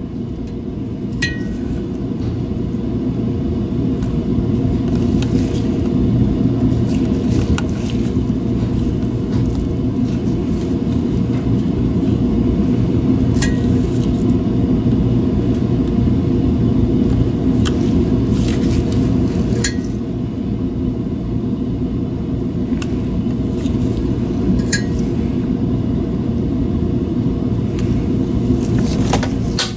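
A steady low hum of running workshop machinery, like a fan or blower, with a faint steady tone in it. About six small sharp clicks come through it at irregular intervals, from tweezers and new mouse feet against the mouse's plastic shell.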